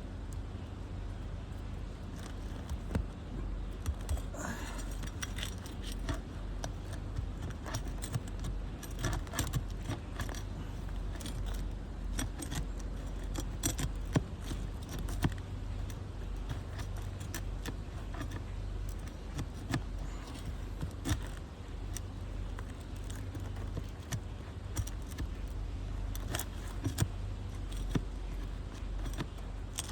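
Asphalt shingles being worked loose by hand and tool: irregular scraping, clicking and crackling as the sealed tab is pried up and the seal strip tears away.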